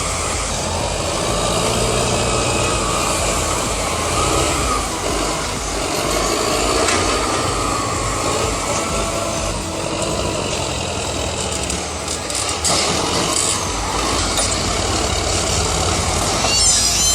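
Heavy machinery running steadily with its diesel engine working, overlaid by wavering high squeals, and a brief clatter near the end.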